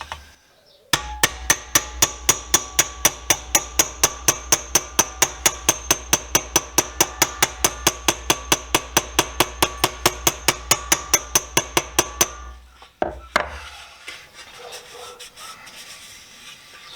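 Hammer tapping dents out of the sheet-metal lid of a socket-set box: a long run of even, ringing metal taps, about four a second, for some eleven seconds. A couple of separate knocks follow near the end.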